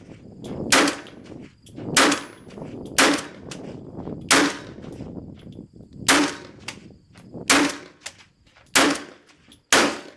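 Eight single shots from a 7.62 mm FAL-pattern semi-automatic rifle, fired one at a time about a second to a second and a half apart, each ending in a short ringing echo.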